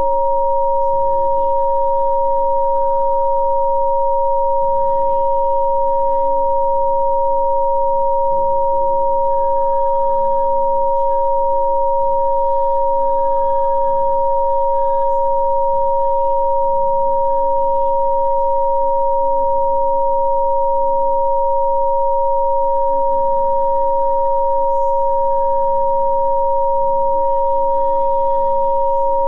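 Two steady electronic sine tones, a lower and a higher one, held unchanging at constant loudness: rife-style healing-frequency tones. Under them runs faint, soft ambient music whose chords change every second or two.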